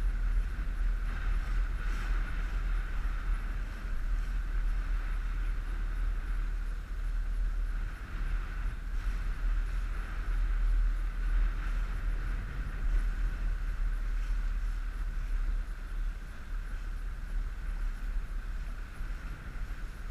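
Wind buffeting the microphone with a heavy, uneven rumble, over the steady drone of the inflatable coach boat's outboard motor running under way.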